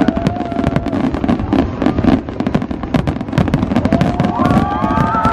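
Fireworks display going off: a dense, continuous run of bangs and crackling from many shells bursting at once. A rising tone comes in about four seconds in and holds.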